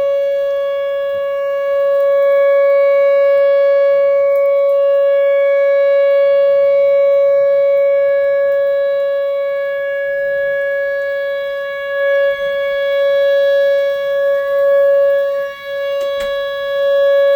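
Outdoor tornado warning siren sounding a long, steady, unwavering tone, the signal to take shelter from a tornado. Its loudness dips and swells a few times near the end.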